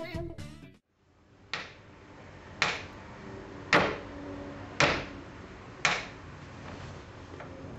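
Knife chopping down onto a cutting board: five sharp strokes about a second apart.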